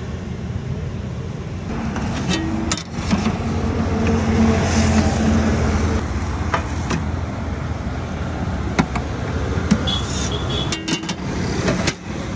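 Steady road-traffic noise, with a vehicle's engine swelling and passing close around the middle. A few sharp metallic clacks come near the end as the stainless-steel steamer box is shut.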